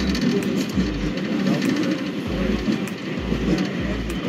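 Walking footsteps thudding through a handheld camera, about two dull thumps a second, over steady street traffic and wind noise.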